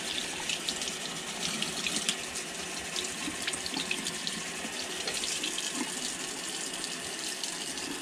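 Running water rinsing fish fillets: a steady rush of water with small irregular splashes as it hits the fillets.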